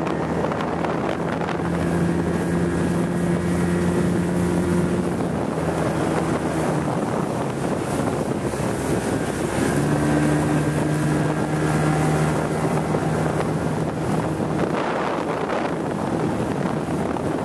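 Yamaha 80 hp outboard motor on a Fletcher GTO speedboat running at speed, a steady engine note that shifts pitch about halfway through and fades near the end. Wind buffets the microphone throughout.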